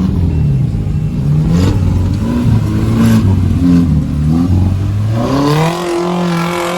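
Off-road 4x4's engine revving up and down as it works over the course, with a few clattering knocks, then climbing to a high, held rev near the end.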